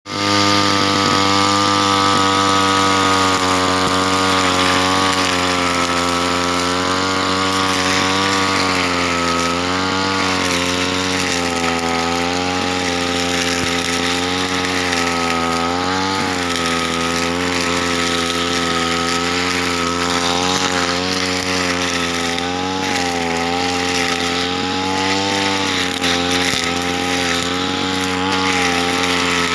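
Petrol brush cutter with a nylon string head running at high revs while cutting grass, its engine note dipping and recovering over and over as the line bites into the grass.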